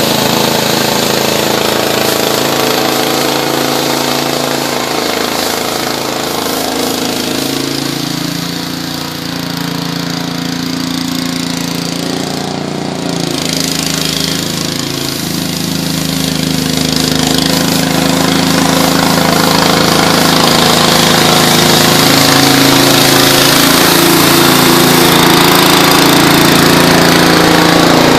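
Garden tractor engine running with a front-mounted Sweepster power broom sweeping snow off concrete, growing fainter as the tractor moves away and louder again as it comes back near the end.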